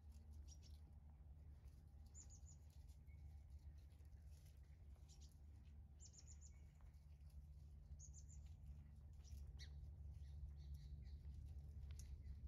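Faint small-bird chirps: short quick runs of high notes about two, six and eight seconds in, with scattered single chirps between, over a steady low hum.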